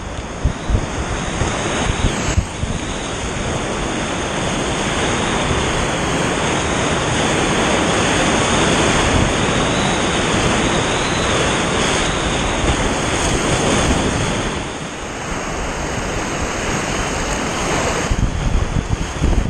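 Whitewater rapids rushing and churning right around the microphone, a steady loud rush that eases for a moment about three-quarters of the way through.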